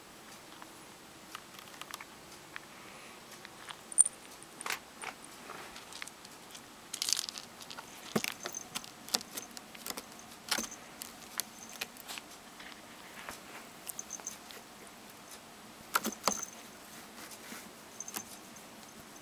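A cat's claws scratching and catching on a carpet-covered cat-tree post as it climbs and bats at a string toy: scattered irregular clicks and short scratchy rustles, the sharpest click about four seconds in.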